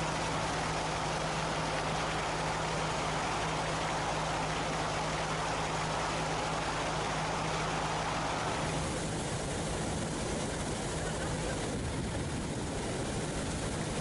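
A motorboat running across the lake: a steady engine drone under the rush of water along the hull and wind on the microphone, with the sound changing in character about nine seconds in.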